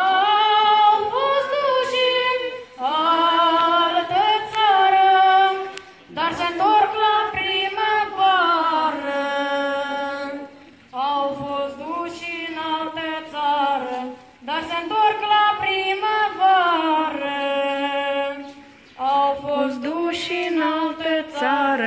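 A child singing a Romanian folk song solo and unaccompanied into a microphone, in about six long phrases, each with held, wavering notes and a short breath between phrases.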